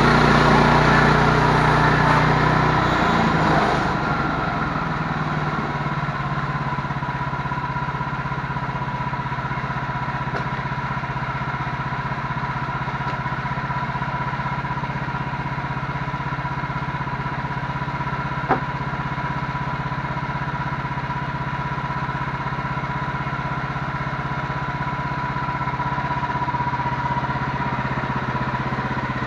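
An engine running steadily, louder for the first few seconds, then settling to a lower, even level with a steady whine. A single sharp click about eighteen seconds in.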